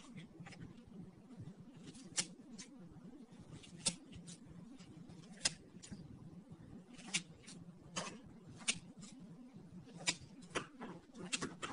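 Red glittery slime being cut and pulled with a thin metal tool, giving sharp, irregular crackles and pops about once a second, over a faint low hum.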